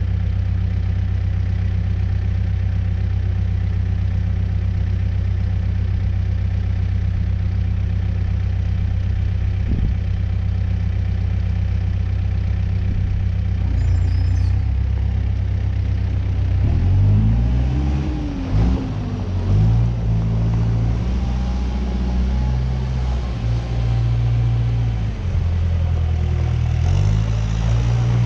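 New Holland B100B backhoe loader's diesel engine running at a steady idle, then over the second half its speed rises and falls repeatedly.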